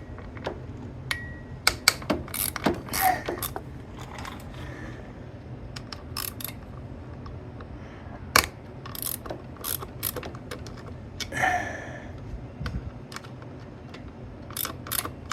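Hand ratchet wrench clicking in short, irregular runs while loosening the clutch hub spring nuts on an early Harley-Davidson Ironhead Sportster, with a ringing metal clink about eleven seconds in.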